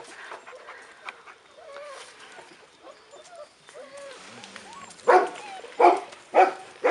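Faint, wavering whimpers, then a Czechoslovakian wolfdog barking four times in quick succession, about two-thirds of a second apart, near the end.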